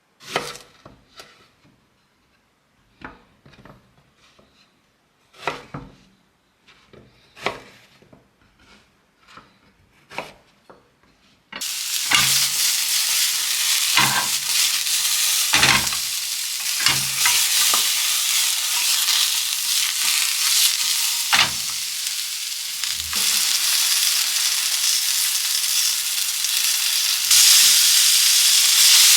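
Scattered knocks and clicks of kitchen handling, then about twelve seconds in a sudden loud sizzle as eggplant and shishito peppers go into a hot oiled frying pan. The frying runs on steadily with occasional knocks and grows louder again near the end.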